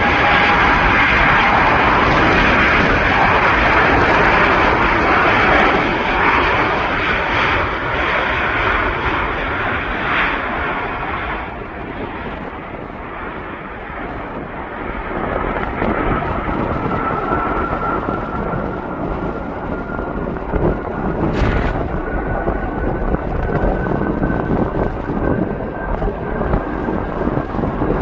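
Airplane engines, loud at first and fading away over about ten seconds; later a thin engine whine rises slowly in pitch over the steady noise.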